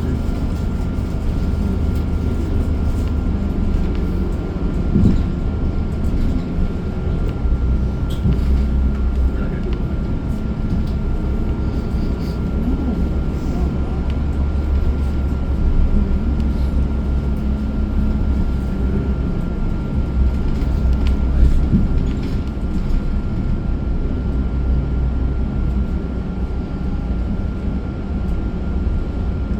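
Steady low drone of a moving city bus heard from inside the cabin, engine and road noise together, with scattered rattles and knocks and a thin steady whine.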